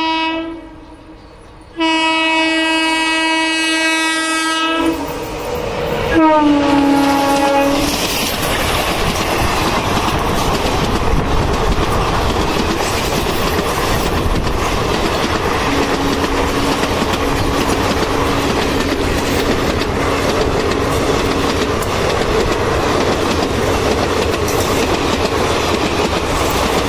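Indian Railways WAP-4 electric locomotive at speed sounding its horn: a long blast, then a second blast that drops in pitch as the locomotive passes. After that the coaches rush past with steady wheel clatter.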